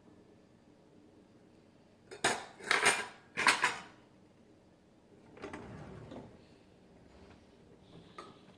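A metal fork clattering against dishes: three loud clinking bursts about two to four seconds in, then a softer rattle a couple of seconds later.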